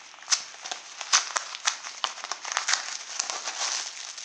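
Plastic postal packaging being opened and handled, crinkling with irregular sharp crackles, the loudest about a third of a second and a second in.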